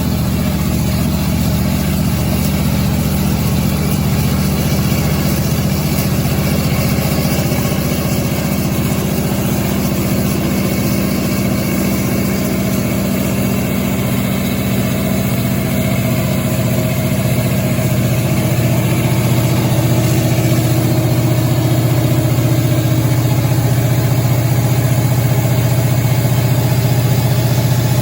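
810 kW Kohler diesel generator set running steadily, with a deep, even engine drone. About halfway through, its tone rises slightly, and it grows a little louder in the last third.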